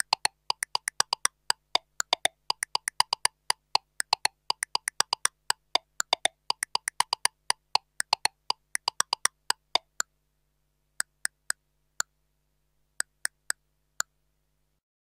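Korg Kross metronome clicks, sharp and bright, several a second in irregular, syncopated patterns. After about ten seconds they thin out to a few scattered single clicks and a quick group of three.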